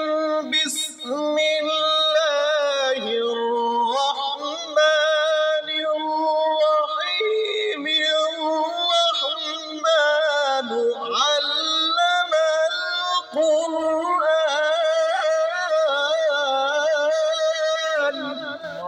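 A man reciting the Quran in melodic tilawat style, drawing out long ornamented notes that waver up and down in pitch, with only brief breaths between phrases.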